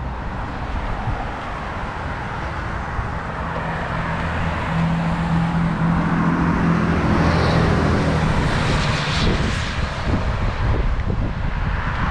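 A motor vehicle passing on a wet road: a steady hiss of road noise with an engine hum that swells through the middle and eases off after about nine seconds.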